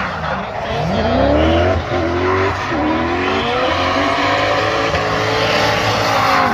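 Two drift cars sliding through a corner in tandem, engines revving with the pitch repeatedly climbing and dropping back as the throttle is worked, over steady tyre squeal.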